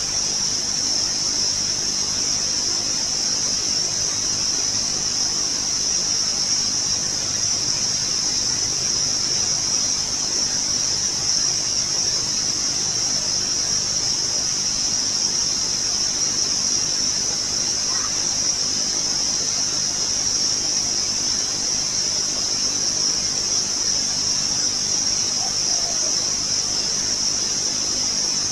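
Steady high-pitched insect chorus, crickets or cicadas trilling without a break, with one or two faint, short bird calls in its second half.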